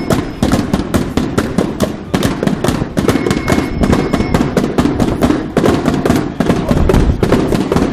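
Marching drum beaten in a rapid, uneven stream of sharp strokes over the low noise of a marching crowd. A thin, steady high tone sounds for about a second, about three seconds in.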